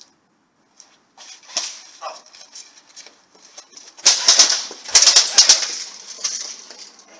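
Close rustling and brushing, as of clothing or gear rubbing near the microphone, building from about a second in and loudest for two seconds from about four seconds in.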